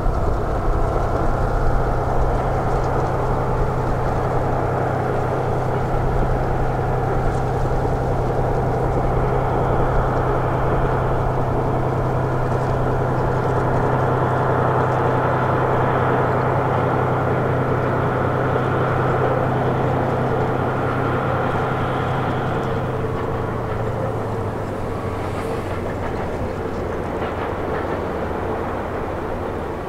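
DF200 diesel-electric locomotive hauling a long container freight train: its engine runs steadily over the noise of the train on the rails. The sound grows a little quieter over the last several seconds.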